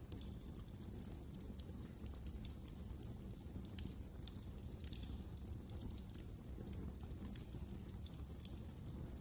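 Wood fire burning in a fireplace: irregular sharp crackles and pops, several a second, over a low steady rumble.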